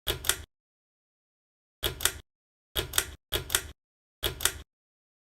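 Five sharp double clicks, each a quick click-clack, of the kind a ceiling fan's pull-chain switch makes on being pulled and let go. The fan's motor is not heard between them.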